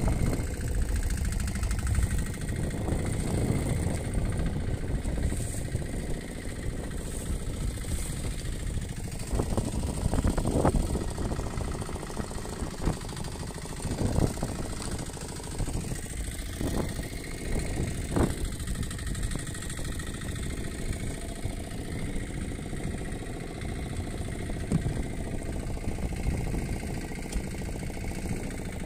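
Small fishing boat's long-shaft outboard engine running steadily, with a few brief knocks or splashes over it.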